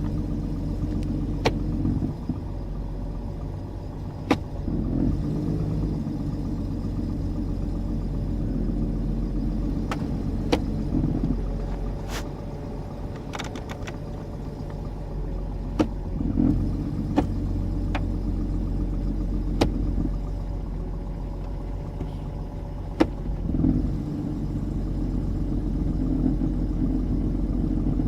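Jeep Cherokee XJ idling cold, with a low hum that cuts in and out every few seconds and several sharp clicks. The owner expects it to stop once the engine warms up, and notes that it stops when he lets off the brake.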